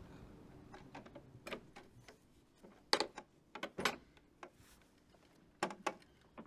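A few faint, irregular clicks and knocks spread over several seconds. The loudest come about three and four seconds in, and a close pair near the end.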